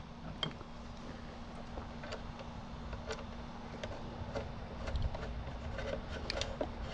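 Faint, irregular clicks and small taps of screws being fitted and driven by hand with a screwdriver into a metal panel, over a faint steady hum.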